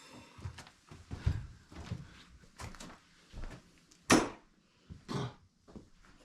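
Scattered knocks and clatters of things being handled, the loudest a sharp clack about four seconds in.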